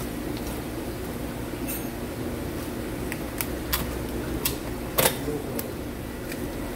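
Knife filleting a whole fish on a plastic cutting board: scattered short clicks and scrapes as the blade works along the backbone and taps the board, the sharpest about five seconds in. A steady machine hum runs underneath.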